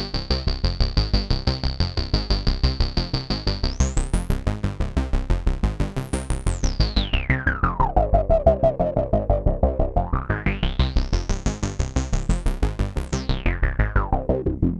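Arturia MatrixBrute synthesizer playing a fast repeating sequence of short notes, about six a second, through an Erica Synths Black Polivoks eurorack filter set to high resonance. The resonant peak holds high, and about four seconds in the cutoff is swept up, then down low, then up and back down again, so the resonance rises and falls in pitch.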